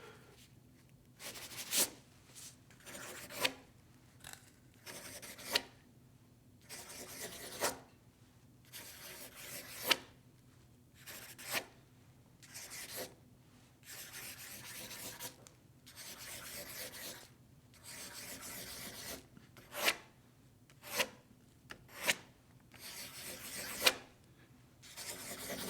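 Pencil writing on paper: scratchy strokes of varying length with short pauses between them, and now and then a sharp tap as the lead meets the page.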